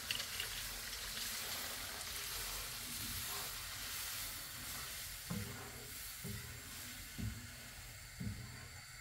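Water poured into a hot frying pan of vegetable and flour roux, sizzling as it hits the pan and is stirred in. The sizzle thins after about five seconds, and then the spoon scrapes the pan about once a second.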